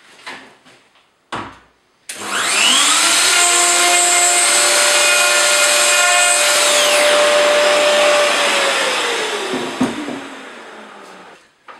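A single knock, then an electric plunge router spinning up, running at full speed for about five seconds with a steady whine, and winding down over a few seconds after it is switched off.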